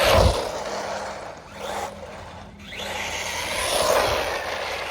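Hospeed Polar Lights brushless RC truggy driving fast, its motor whine and tyre noise swelling as it passes. The sound is loudest about a quarter second in and again near four seconds, with a rising whine just before the second swell.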